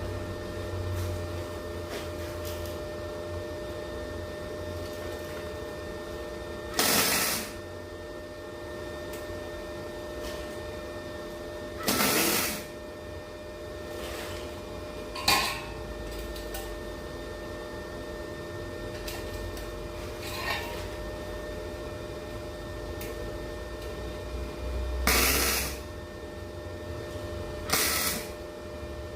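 MIG welder laying short tack welds: about six brief sputtering bursts, each half a second to a second long and spaced several seconds apart, over a steady machine hum.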